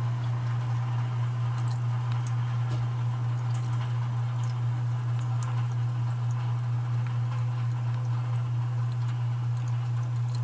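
Well pump running with a steady low hum as it fills the new pressure tank, with faint scattered ticks; the pressure switch has not yet cut it off past the intended 50 psi setting.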